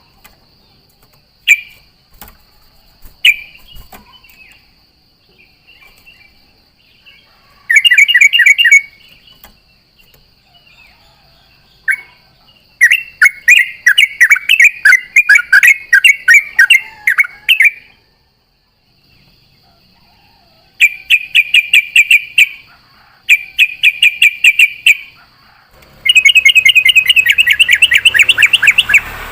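Yellow-vented bulbul (trucuk) singing in rapid, bubbling runs of chattering notes: a short burst, then a long run of several seconds, then three more runs near the end, separated by pauses.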